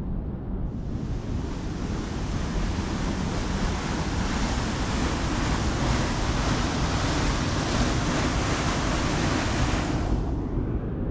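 Rushing mountain stream tumbling over rocks: a steady hiss of white water that swells in after about a second and falls away near the end. Under it is a low rumble of wind on the microphone.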